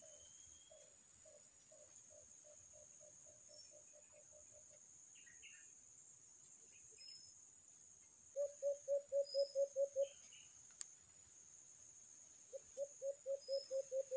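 Doves calling in rapid runs of low hoots, about five a second. A fading run comes first, then two louder runs about eight and twelve seconds in. Under them runs a steady high insect drone, with a few faint bird chirps.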